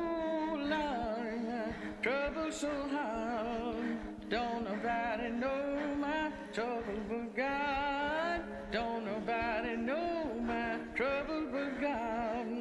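A recorded pop song with a singer's phrases, held notes wavering with vibrato over steady sustained chords, sounding thin with little bass.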